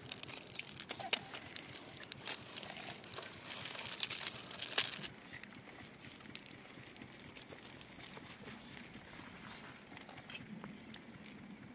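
Foil Maggi masala seasoning sachets crinkling and crackling as they are squeezed and emptied onto a foil paper plate, stopping after about five seconds. A little past the middle, a bird gives a quick run of high chirps.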